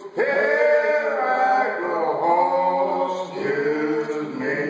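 A small group of men singing a menhaden fishermen's work chant a cappella, in slow, drawn-out phrases.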